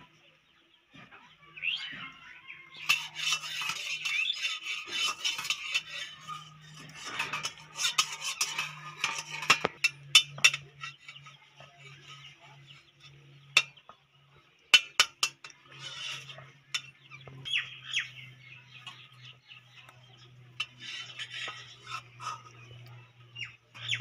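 Tomatoes being sliced on an upright bonti blade, with the pieces dropped into a steel bowl: scattered sharp clicks and light clinks, several close together in the middle. Birds chirp throughout in the background.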